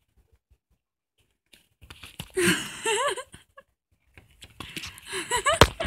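A cat giving short, bending meows amid crinkling and rustling, with a sharp click near the end.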